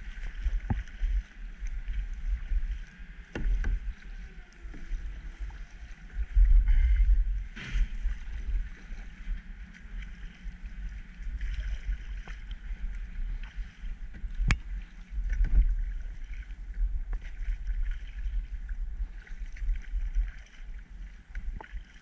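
Kayak paddling: paddle blades splashing and dripping water in a steady wash, with a few sharp knocks scattered through, over a low rumble on the microphone.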